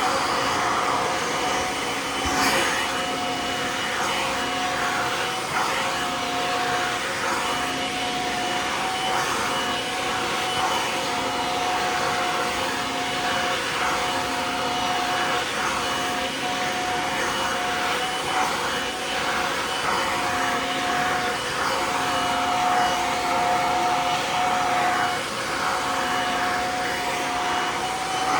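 Kirby vacuum cleaner running steadily through its pet-grooming attachment as a cat is groomed. Its steady whine dims and returns now and then.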